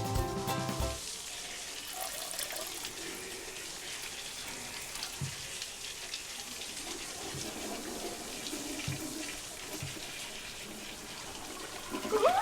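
Background music cuts off about a second in, then a shower runs steadily, water spraying and splashing.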